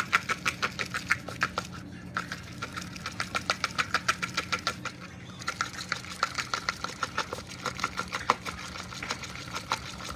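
Utensil stirring briskly in a bowl, clicking against the bowl's sides about six times a second, with two short pauses.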